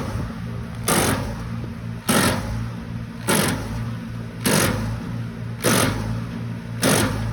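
A large engine-driven wood chipper running steadily, with a loud crunching burst about once a second at a very even pace.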